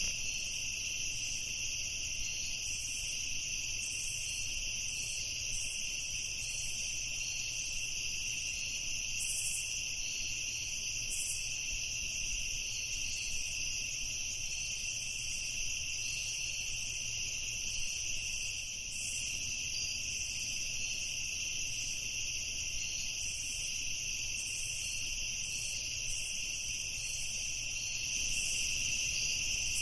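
A night chorus of crickets trilling without a break, with fainter, higher chirps coming and going over it.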